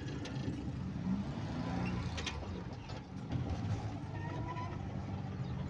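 Van engine running and tyre noise from inside the cabin while driving, a steady low rumble with a faint click about two seconds in.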